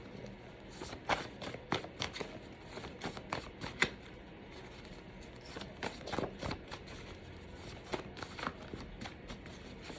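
Tarot cards being shuffled by hand: an irregular run of soft riffling clicks and card slaps.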